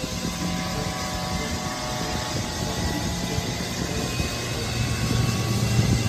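Helicopter flying, a steady fast rotor beat over a rushing engine noise.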